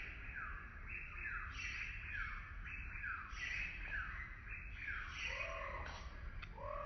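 Birds calling: one bird repeats a falling note close to two times a second. A second, lower arched call comes in twice near the end.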